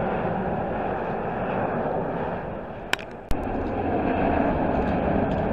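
Jet airliners on landing approach passing by: a steady engine rumble and rush from a twin-engine jet, broken by two sharp clicks about halfway through, then the engine noise of an arriving Boeing 777 freighter, a little louder.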